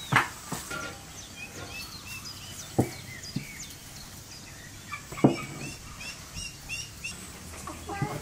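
A wooden rolling pin thudding on a wooden table as pide dough is rolled out, two clear knocks about 3 and 5 seconds in, with small birds chirping throughout.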